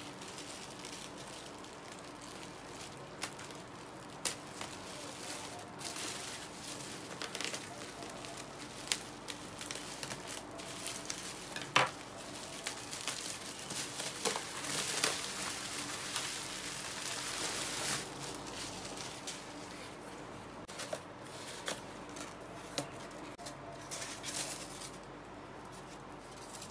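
Plastic bubble wrap being cut with scissors and pulled off a cardboard box: crinkling and crackling with many sharp snips and clicks, busiest about halfway through and quieter near the end.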